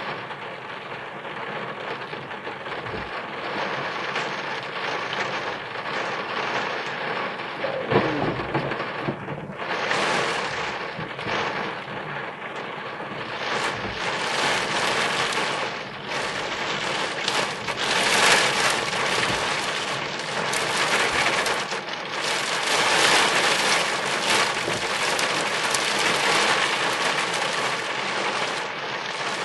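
Heavy rain falling on a car, heard from inside, growing heavier after about ten seconds. About eight seconds in, a single sharp crack of thunder from a close lightning strike is the loudest sound.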